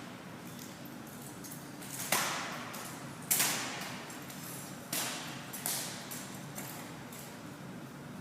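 Drill rifles being handled in a rifle drill routine: a few sharp knocks and slaps at uneven intervals, each ringing on in a large hall.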